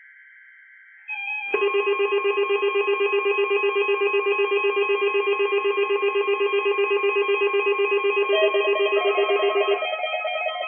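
A First Alert weather radio receiver's alarm going off: a loud, rapidly pulsing electronic beep of several tones at once, starting about a second in and stopping near the end. It has been triggered by the warning alarm tone of a NOAA Weather Radio weekly test.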